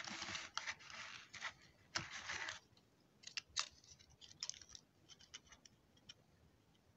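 Screwdriver rasping as a small screw is turned into the heatsink of a switching power-supply board, in scratchy bursts over the first two and a half seconds. Then a run of light clicks and taps as the board is handled.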